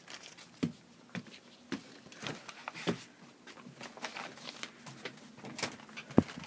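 Footsteps of a person walking on a wooden floor, about two steps a second, with a sharp knock near the end.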